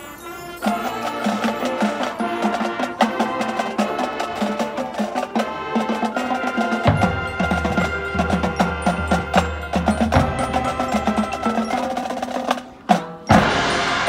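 Marching band front ensemble playing a fast mallet-percussion passage, many quick pitched strikes on marimbas and vibraphones, with a low sustained bass note underneath for a few seconds in the middle. Near the end the music drops out briefly, then the full band comes in loudly.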